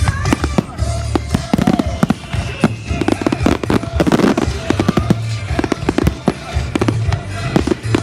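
Fireworks going off in quick succession, many sharp bangs and crackles a second, over music played for the display.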